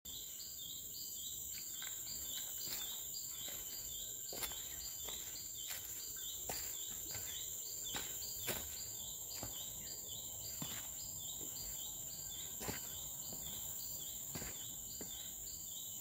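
Forest insects keep up a steady high buzz, with a high call repeated a couple of times a second above it. Footsteps on dry leaf litter and log steps give soft irregular clicks about once a second.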